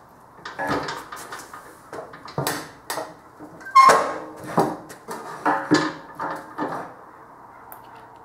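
Irregular metal clunks and knocks from handling at a drill press with a tapping head, with one sharp ringing clank about four seconds in.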